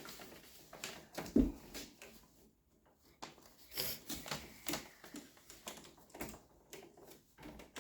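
Irregular small clicks and rustles of wires and a wall switch being handled as the wires are taken off it, with one louder knock about a second and a half in.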